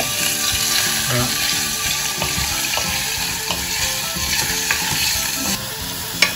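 Diced salmon, carrot and broccoli sizzling in butter in a stainless steel saucepan while being stirred with a wooden spatula, a steady frying hiss. A single sharp knock of the spatula against the pan comes near the end.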